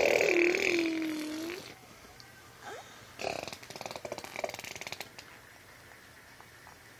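A baby blowing motorboat raspberries, a voiced buzz of vibrating lips. The first buzz has a wavering, dipping pitch and ends about a second and a half in. A second, rapidly fluttering trill comes about three seconds in and lasts about two seconds.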